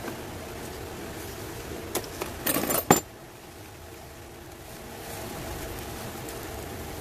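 A succulent's root ball being pulled out of a black plastic nursery pot: a brief crackling, scraping rustle of plastic and soil about two and a half seconds in, ending in a sharp click, with a lighter click just before. A steady low hum runs underneath.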